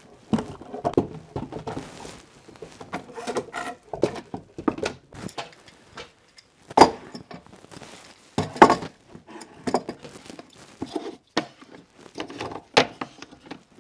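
Metal Bessey clamps clattering and knocking as they are hung one after another on a wall-mounted clamp rack, with irregular clanks and taps and a few louder knocks in the second half.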